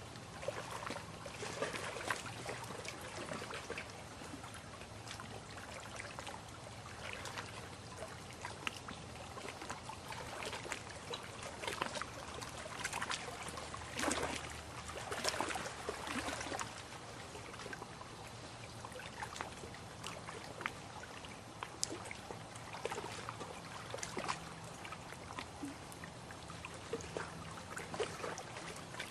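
Lake water lapping and trickling, with many small irregular splashes and drips. A faint, steady low hum runs underneath.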